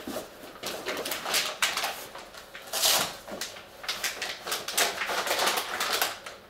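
Continuous crinkly rustling of packaging and a cricket bat cover as a bat is lifted from a cardboard box and slid out of its cover, loudest about three seconds in.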